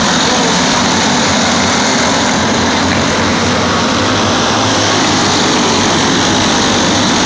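A pack of racing karts' engines running together, a loud, steady drone.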